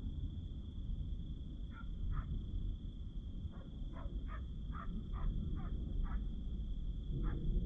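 Distant thunder rumbling low and steady. From about two seconds in, a run of about ten short animal calls comes two or three a second over the rumble, with a thin high steady tone throughout.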